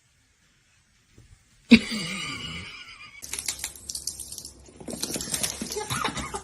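Silence, then a sudden loud knock followed by several seconds of rapid clattering clicks and rattles.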